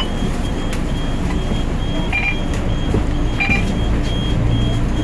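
Volvo DM3500 bus's diesel engine running, heard from inside the passenger cabin as a steady low drone that settles into a steadier hum near the end. A short high beep repeats about twice a second over it.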